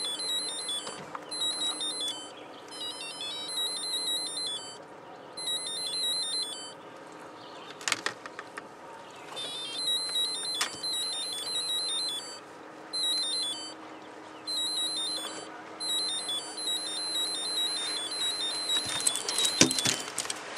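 High-pitched electronic beeping in short, repeating, tune-like phrases. Sharp clicks and rattles from unhooking a channel catfish in a landing net come about eight seconds in, again around ten seconds, and more loudly near the end.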